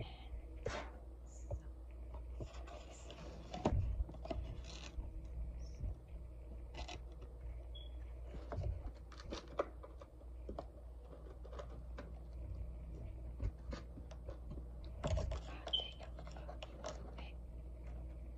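Scattered scrapes, scratches and clicks from hands handling a disposable aluminium foil baking pan of cookie bars, with louder handling bursts about four seconds in and again near fifteen seconds.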